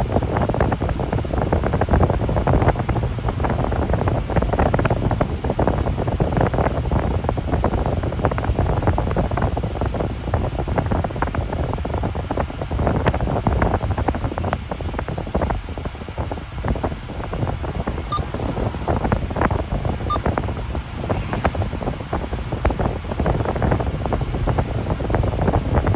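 Steady road and wind noise inside a moving car's cabin, with a constant rushing and irregular buffeting.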